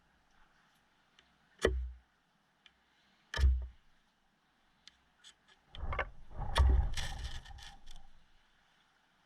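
Two sharp, heavy knocks about two seconds apart, then a burst of cracking and snapping that lasts about two seconds.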